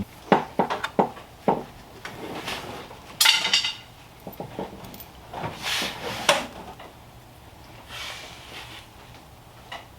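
Metal tool clinks, knocks and a short rattle, with scraping, as the oil drain plug is put back in under the car with a new crush washer. Several sharp clicks come in the first second and a half, the rattle a little after three seconds, and softer rubbing and scraping follow.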